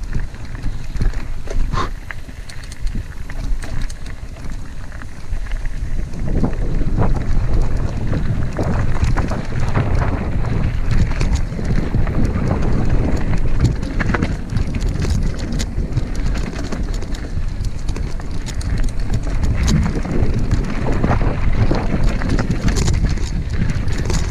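Mountain bike riding a rough dirt trail: wind buffets the on-bike microphone while the bike rattles and knocks over the ground. The noise grows louder about six seconds in.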